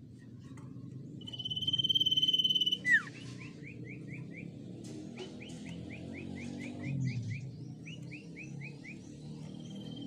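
Common iora singing. It gives a long, steady high whistle, the loudest sound, and then a short falling note. After that come runs of quick short chirps at about five a second, and another long whistle starts near the end.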